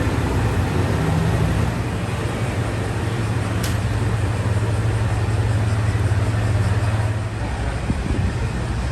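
Steady running noise of a vehicle: a low hum under a wide hiss, easing slightly about seven seconds in, with one brief sharp tick about three and a half seconds in.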